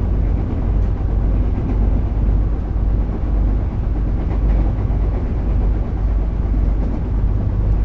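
Commuter train running: a steady low rumble with a few faint clicks.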